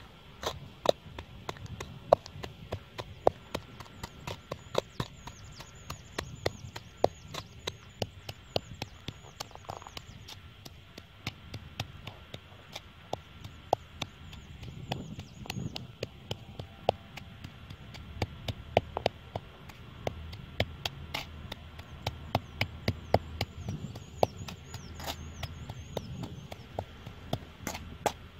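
Stone pestle pounding chilies, garlic and salt in a coconut-shell bowl: quick, irregular sharp knocks, several a second, keeping on throughout.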